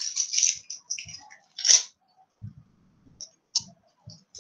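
Handling noise from an object held close to a headset microphone: rustling at the start, one loud, sharp crackle a bit under two seconds in, then a few faint clicks.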